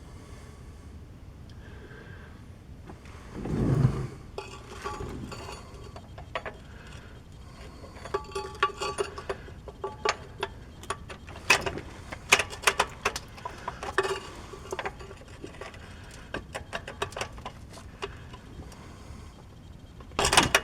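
Ratchet wrench clicking in irregular runs on the rusted nut holding the shift cable lever arm, with metal tool ticks against the transmission. There is a louder dull knock about four seconds in.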